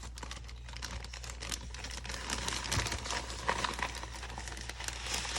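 Packaging crinkling and rustling as it is handled and opened by hand, with many small clicks and taps.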